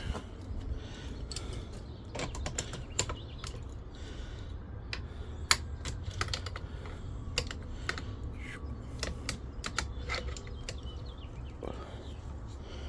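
Irregular light clicks and taps of small metal hardware, washers and nuts, being handled and tightened by hand, over a steady low hum.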